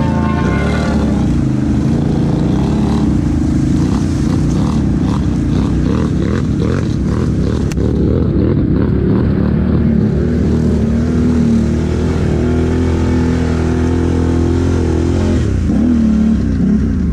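ATV engine running under varying throttle, its pitch rising and falling as the quad works through mud and tall reeds. There is a crackling swish of reeds brushing against the machine in the first half.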